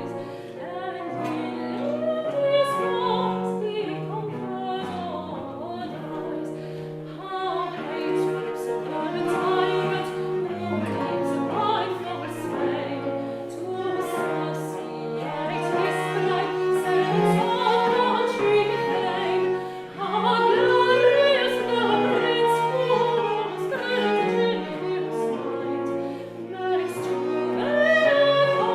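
A female voice singing a Scottish song in classical style, accompanied by a baroque ensemble of traverso, violin, viola da gamba, Celtic harp and theorbo.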